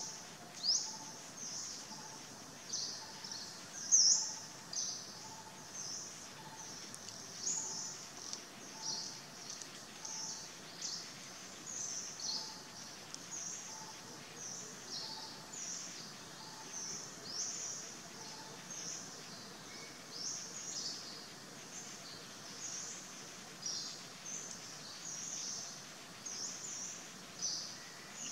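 Forest ambience full of small birds chirping: many short, high, quick notes overlapping all the way through, with one louder chirp about four seconds in. A fainter, lower note repeats about every three-quarters of a second for the first two-thirds, then stops.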